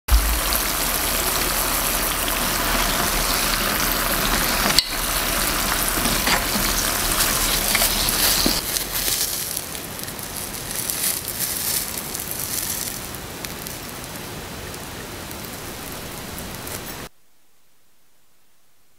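Malasada dough frying in hot oil: a steady sizzle, loud for about the first nine seconds and quieter after, with small crackles, cutting off abruptly near the end.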